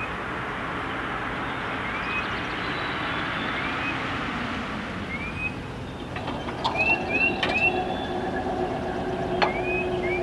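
A railroad grade-crossing warning bell starts ringing about six seconds in as the crossing activates, over a steady distant rushing noise. A bird chirps short rising notes several times.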